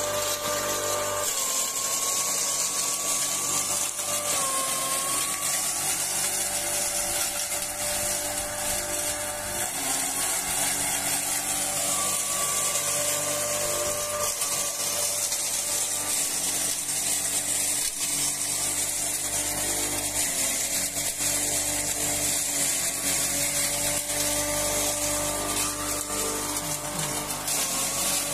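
Electric hammer-mill fodder grinder (drobilka) running under load, shredding dry hay fed into its hopper. A steady motor whine that sags slightly in pitch several times as bundles go in, over a constant hiss of chaff blowing out.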